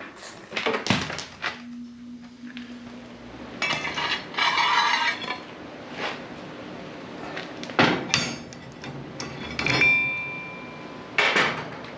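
Thick torch-cut steel parts being handled and set down on metal: a string of clanks and clinks, a scraping stretch a few seconds in, and a short metallic ring near the end.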